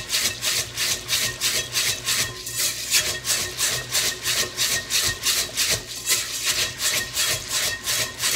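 Rice being washed by hand in a rice cooker's inner pot: the heel of the palm presses and rubs the damp grains against the pot in an even rhythm of about four strokes a second.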